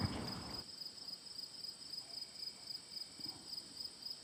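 Faint chorus of crickets chirping in a field, a steady high trilling made of rapid, evenly spaced pulses.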